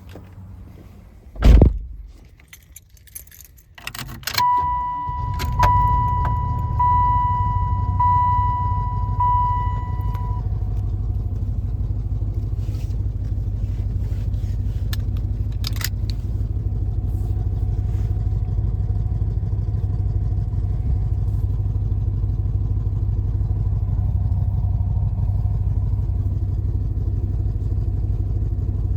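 A thump about a second and a half in, then the 1996 Impala SS's 5.7-litre LT1 V8 is cranked, starts about four seconds in and settles into a steady idle. A dashboard warning chime beeps repeatedly for about six seconds after the engine starts.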